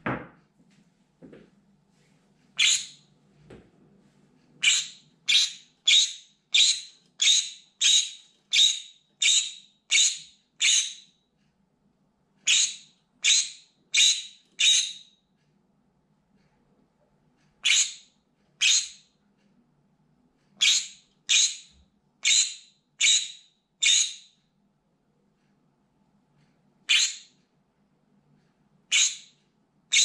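Green-cheeked conure screaming: loud, harsh, short high calls repeated about one and a half times a second in runs of up to about ten, with pauses of a second or two between runs.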